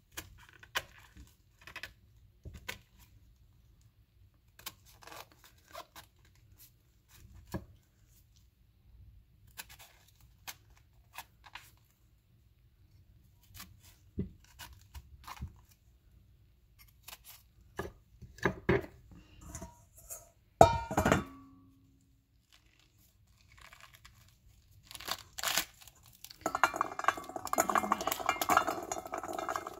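Kitchen knife scoring a pomegranate's leathery rind: scattered short scrapes and clicks, with one louder knock a little over two-thirds through. Near the end the fruit is pulled apart by hand, the rind tearing and crunching as it breaks open over a metal bowl.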